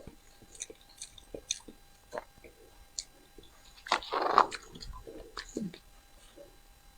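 A person chewing and eating crucian carp, with soft, scattered wet mouth clicks and smacks and one louder noisy burst about four seconds in.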